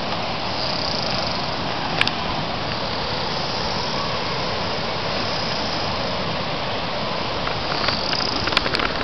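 Steady rush of wind and tyre noise from a bicycle being ridden over a dirt trail, with a sharp knock about two seconds in and a cluster of rattling clicks near the end as the bike goes over bumps.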